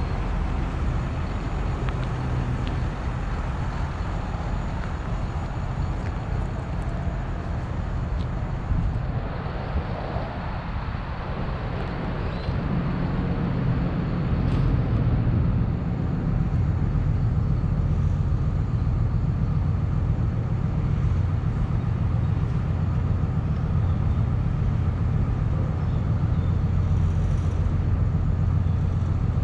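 2018 Hino 268 box truck's diesel engine idling steadily, a low hum that grows somewhat louder about halfway through.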